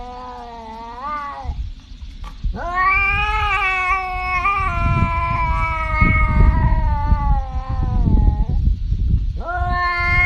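Domestic cat yowling in long, drawn-out calls. One call ends about a second and a half in, a long one lasts about six seconds, and another begins near the end, with a low rumbling noise underneath.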